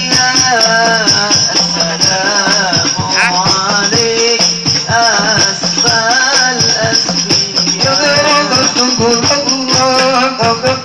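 Hadrah devotional music: a male voice sings a melismatic, wavering line over rebana frame drums and jingling percussion, which keep a fast, steady beat.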